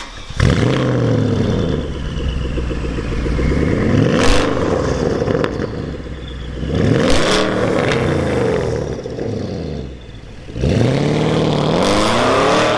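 Porsche Panamera Turbo's 4.8-litre twin-turbo V8 through a straight-through exhaust with downpipes and no resonators, revved hard about four times, its pitch sweeping up and falling back with each blip. A sharp crack comes about four seconds in and another about seven seconds in.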